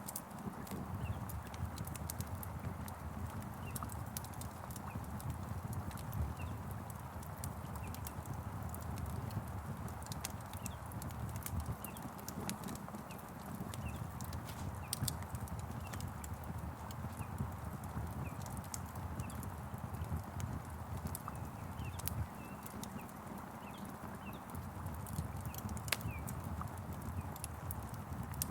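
Log fire crackling, with frequent sharp pops over a low steady rush, mixed with a steady hiss of rain and faint short bird chirps.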